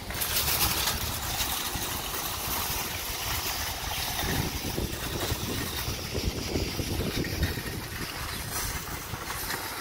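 Shopping cart rattling over parking-lot asphalt as it is pushed away, under a steady outdoor rumble and hiss.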